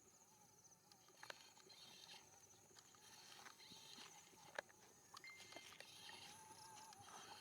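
Near silence: faint outdoor background with a few light clicks, the sharpest about four and a half seconds in.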